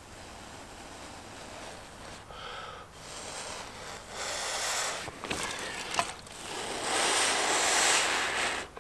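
A man blowing on a glowing char cloth ember held in his fingers, coaxing it hotter: about four breathy puffs that grow longer and louder, the last lasting about two seconds.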